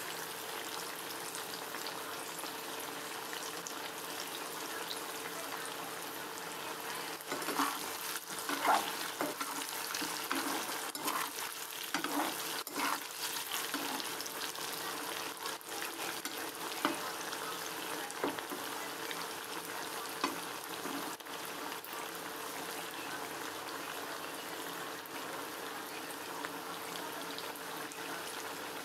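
Potato pieces frying in hot oil in a kadai, a steady sizzle. Through the middle stretch comes the scraping and knocking of a metal slotted spatula turning them in the pan.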